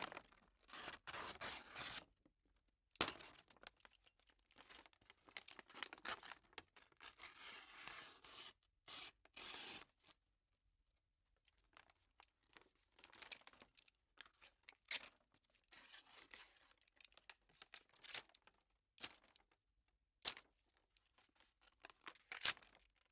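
Box cutter blade slicing through paper: a series of short and longer cutting strokes with gaps between them, and sharp clicks now and then.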